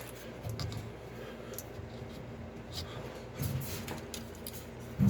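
Scattered small clicks and rustles of hands working at the plastic wiring connectors on a washing machine's drain pump.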